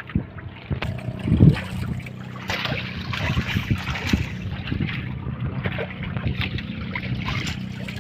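A boat engine running steadily over water lapping and splashing, with scattered light knocks and one short low thump about a second and a half in.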